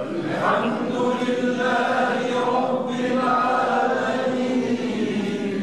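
A man's voice chanting Quran recitation in a slow melodic style through a microphone, drawing out long held notes with a short break about three seconds in.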